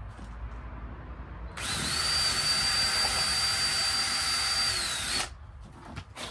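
Cordless drill running at full speed for about three and a half seconds as the bit bores a hole through a thin vinyl (PVC) lattice cap into a scrap block of wood beneath. It makes a steady high whine that begins about a second and a half in and stops suddenly near the end.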